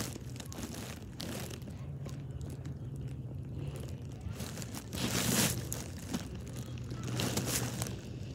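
Fabric rustling and rubbing against the phone's microphone, with two louder scuffs about five and seven seconds in.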